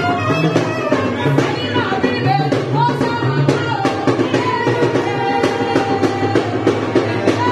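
Saxophone playing a melody of long held notes with slides between them, over a steady drum beat.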